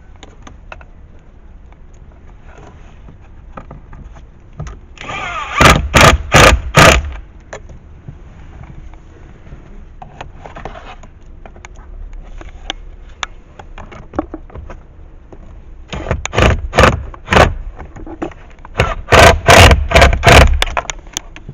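Cordless screwdriver running in short, repeated bursts as it drives Phillips screws in: one cluster of bursts about five seconds in, and a longer run of bursts from about sixteen seconds to near the end.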